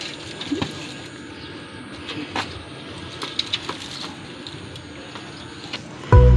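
Quiet outdoor background with a few scattered light clicks and knocks, then background music with a steady beat starting suddenly near the end.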